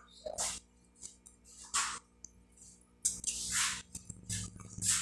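Close-up mouth sounds of a person eating stewed chicken and potatoes by hand: wet chewing and lip smacking in short irregular bursts, the longest about three seconds in.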